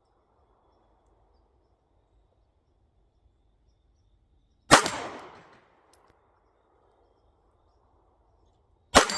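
Two shots from a 9mm Luger pistol, about four seconds apart, each followed by a short echo dying away.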